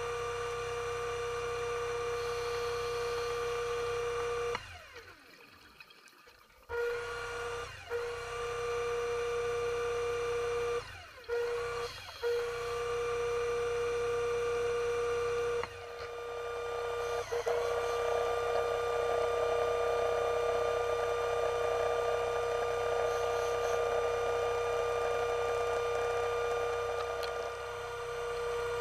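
Electric motor of an underwater scooter (diver propulsion vehicle) running with a steady whine. It cuts out three times, for about two seconds, about one second, and then briefly, and spins back up each time. Past the middle a rushing noise joins it.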